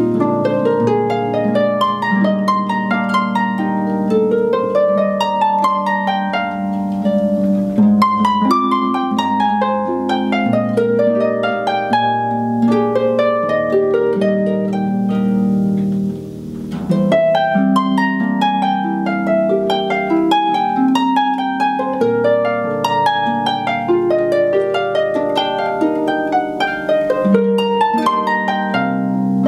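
Concert harp played solo: a continuous flow of plucked notes in rising arpeggios and chords, with a brief break about sixteen seconds in.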